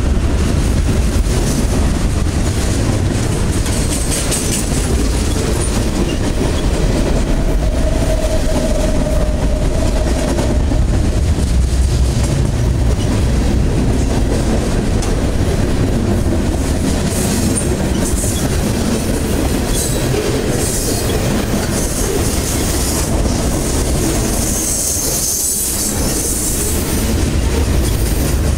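Freight cars of a long mixed freight train rolling past close by: a steady low rumble of steel wheels on the rails, with clickety-clack as the wheels cross the rail joints.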